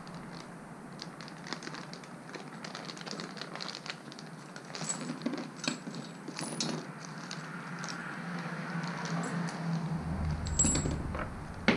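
Small parts being handled on a workbench: a plastic parts bag crinkling while small bushings and hardware click and clatter against each other and the bench. Near the end, a low rumble comes in under a few louder clicks.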